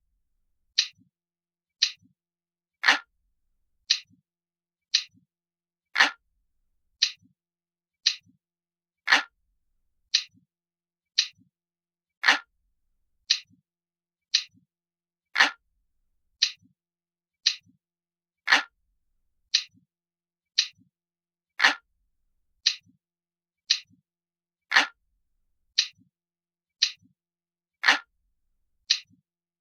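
Analog clock ticking at one tick a second, each tick a sharp click followed by a much fainter click. Some ticks are a little louder and fuller than others.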